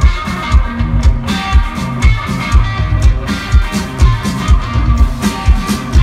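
Live rock band playing an instrumental passage: an electric guitar riff over a drum kit, with a kick drum beating a steady pulse about twice a second.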